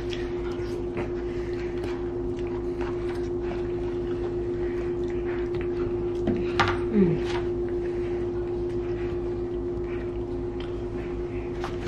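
Forks clicking and scraping against plates during a meal, over a steady hum. About two-thirds of the way through comes a brief, louder sound that falls in pitch.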